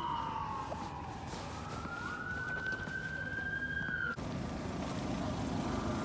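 Ambulance siren wailing in one slow sweep, falling in pitch and then rising again. It cuts off suddenly about four seconds in, leaving a steady background hiss.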